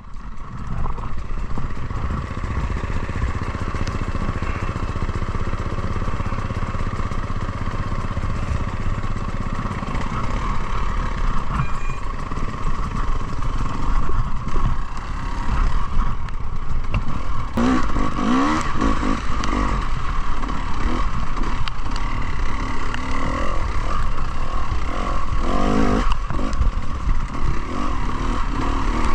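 Enduro motorcycle engine running steadily while the bike is ridden, with brief rises in pitch as the throttle is opened about two-thirds of the way through.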